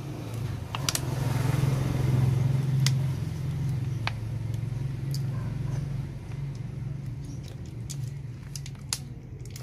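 A motor vehicle engine running with a steady low hum. It grows louder about a second in and eases off after about three seconds, with a few sharp clicks on top.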